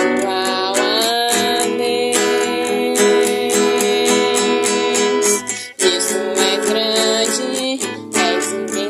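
Acoustic guitar playing the melody of a gospel worship song in a steady rhythm of picked notes, with a short break about six seconds in.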